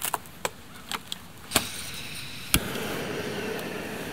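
Gas camp stove being lit: a few sharp clicks from the igniter and valve, the loudest about two and a half seconds in, after which the burner catches and runs with a steady hiss.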